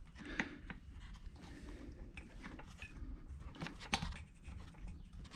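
Faint, scattered clicks and scrapes of hand tools and parts being handled at a small engine's spark plug, with one sharper click about four seconds in.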